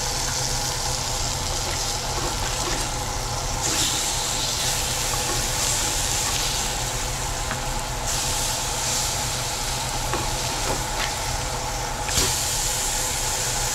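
Blackened coho salmon fillets sizzling in butter in a very hot frying pan. The sizzle grows louder about four seconds in and again near the end as the fillets are turned over with a spatula. A kitchen exhaust fan hums steadily underneath.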